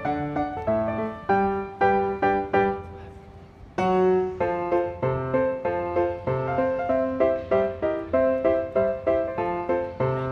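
Background piano music, a steady run of evenly paced notes. It thins out and fades about three seconds in, then starts up again about a second later.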